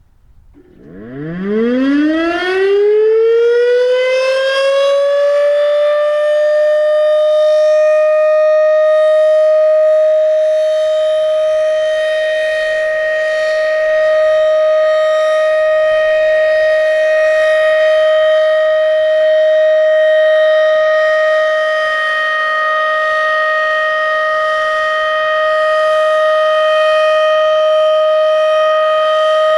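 Federal Signal Thunderbeam RSH-10 rotating warning siren starting up about a second in, its pitch climbing for about five seconds to a steady high tone, which it then holds as a Full Alert steady-tone signal. The loudness swells and fades slowly as the horn turns.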